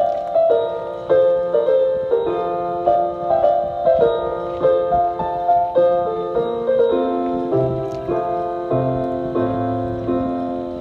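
Piano playing a gentle instrumental passage of chords and melody, each note struck and then fading, with no singing.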